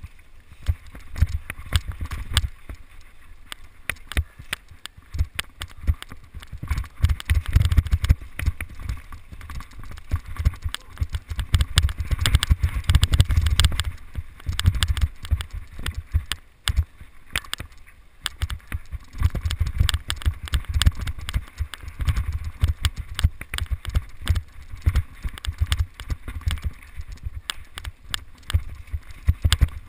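Mountain bike riding fast down a dirt singletrack, heard from a camera mounted on the bike: a constant clatter of knocks and rattles as the bike and mount jolt over the rough trail. A low wind rumble on the microphone rises and falls with the speed.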